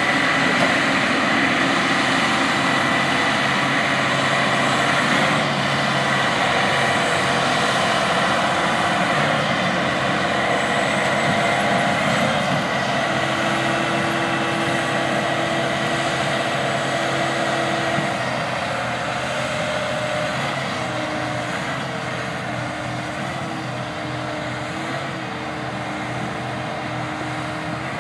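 Combine harvester running while harvesting wheat: a steady engine and machinery drone with a high whine, fading slowly as it moves away.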